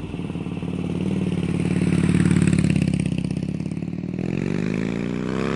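Motorcycle engine running, swelling in level about two seconds in, then revving with a rising pitch near the end.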